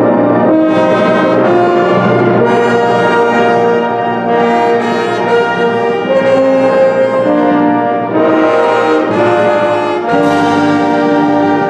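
Full high school wind band playing loud, sustained chords with the brass to the fore. The harmony moves every second or so, and a new chord enters near the end.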